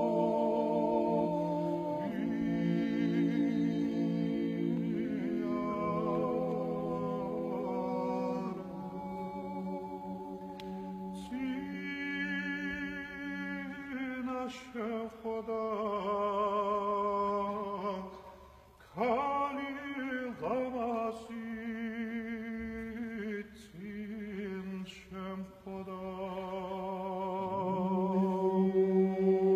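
Georgian men's chorus singing a cappella in close polyphony, held low notes under moving upper voices. There is a brief break about two-thirds of the way through before the voices come back in.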